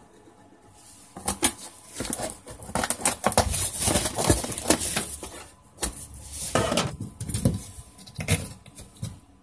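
Corrugated cardboard template being handled against a fibreglass boat hull: lifted, bent and shifted back into place, giving an irregular run of scrapes, rustles and knocks that starts about a second in.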